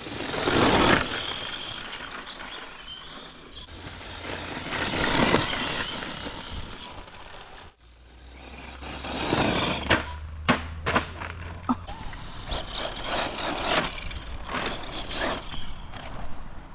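HPI Jumpshot Flux electric RC car with a brushless motor driving fast past on a dirt path, its sound swelling and fading twice. After a sudden cut about eight seconds in, it runs on a gravel dirt-jump track with a string of sharp knocks and clatters.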